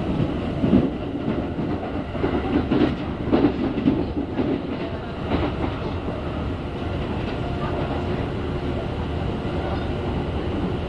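A Kintetsu electric express train running, heard from inside the passenger car: a steady rumble of wheels on rail. Clacks over rail joints come several times in the first half.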